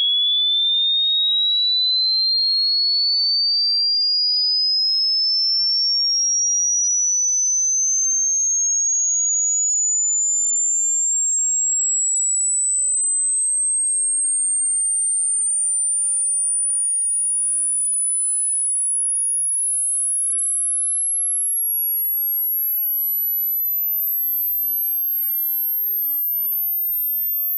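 A single pure sine test tone climbing steadily in pitch in small steps, from a high tone to a very high, thin one. It is the frequency sweep of an age-related hearing test: the point where the tone fades out for a listener marks the age of their ears.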